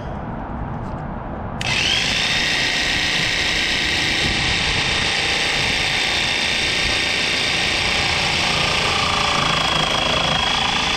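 A small electric power tool switches on about a second and a half in, spins up quickly, and runs steadily with a high whine.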